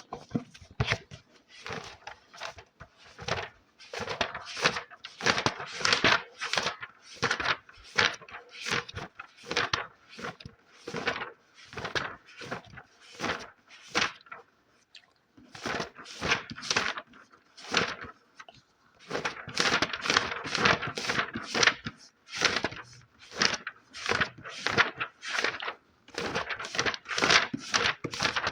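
Close-miked scratching and rubbing strokes on a book, several a second in an uneven rhythm, with brief pauses about halfway through.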